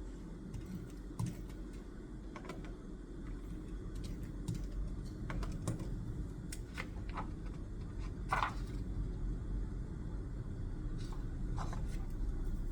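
Scattered, irregular clicks of keys being pressed, over a low steady hum. A somewhat longer, louder click comes a little past eight seconds in.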